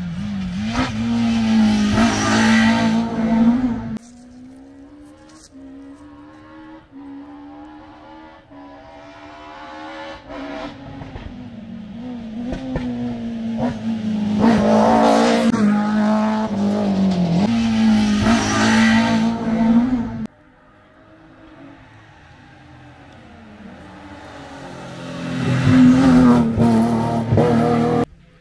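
Rally cars' engines on a tarmac stage, revving hard and climbing up through the gears as they approach and pass. The sound comes in three short cuts, each rising to a loud pass.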